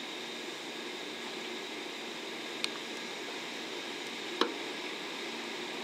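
923 series Doctor Yellow Shinkansen inspection train rolling slowly past, a steady hum and hiss with faint high whines. Two sharp clicks, the second louder, come about two and a half and four and a half seconds in.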